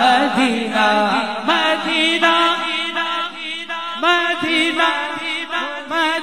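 Male voices singing an Urdu naat unaccompanied through microphones, with long ornamented, wavering melodic runs over a lower held note.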